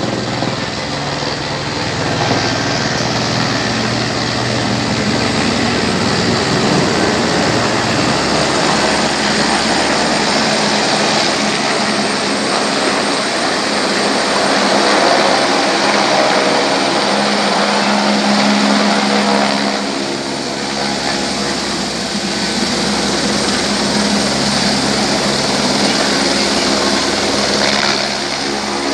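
Light helicopter's rotor and turbine engine running as it flies in low and descends to a hover just above the ground, loudest around the middle.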